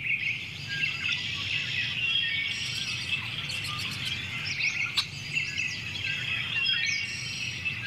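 Many small birds chirping and calling at once, a dense overlapping chorus, with one sharp click a little past the middle.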